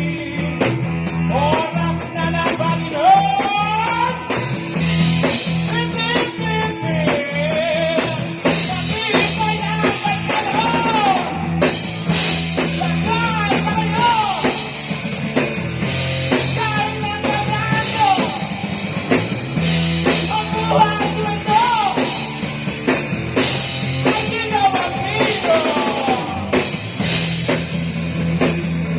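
Rock music jam with drum kit and guitar, a bending, sliding lead melody over a steady bass and drum groove.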